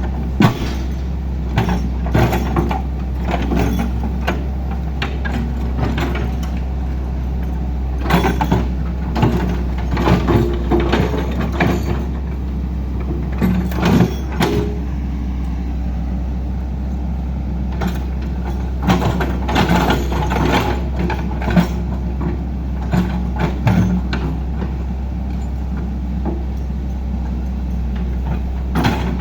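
Heavy diesel machinery engine running steadily, with many irregular metallic clanks and knocks.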